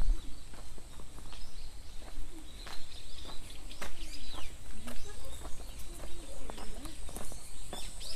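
Birds calling in short chirps, with lower wavering calls, over scattered clicks and a steady low rumble.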